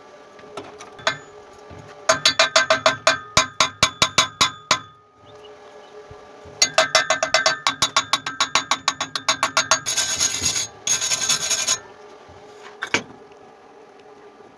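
Rapid rasping strokes worked back and forth on a thin steel pipe, the metal ringing with each stroke, in two runs of a few seconds, then a shorter harsher scraping burst and a single click near the end.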